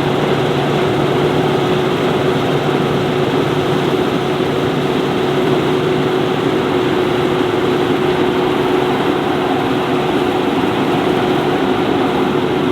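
Combine harvester running steadily at harvesting speed: a constant, even machine noise with a steady hum that does not rise or fall.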